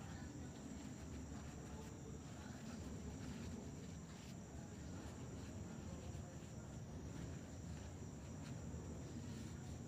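Steady high-pitched insect trill over a low background rumble.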